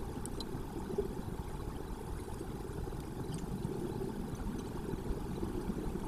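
Steady low rumbling noise with a few faint high ticks.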